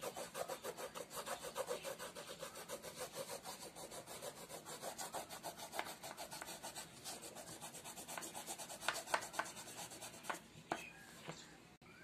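Light violet oil pastel scrubbed back and forth over drawing paper in quick, even strokes, a dry scratchy rubbing as the colour is laid on over earlier pastel layers. The strokes thin out and stop about ten seconds in.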